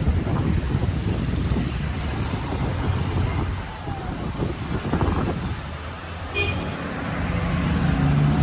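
City street traffic: cars and other motor vehicles passing with a steady engine rumble, one engine growing louder near the end.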